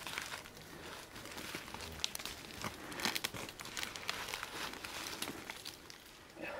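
Jacket and hands scraping and rustling against tree bark while a person climbs a thick tree trunk, with scattered sharp scuffs and cracks.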